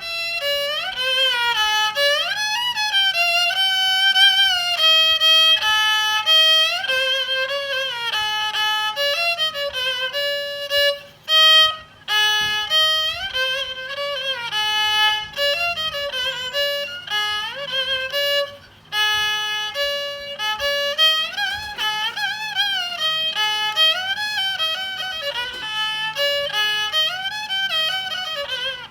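Nhị nữ (đàn cò), a Vietnamese two-string bowed fiddle with a rosewood body and a monitor-lizard skin face, playing a solo melody with sliding notes and vibrato. The playing breaks off briefly twice, about a third and two thirds of the way through.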